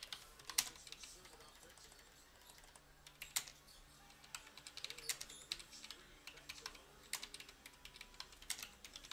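Faint, irregular keystrokes on a computer keyboard: someone typing a short message.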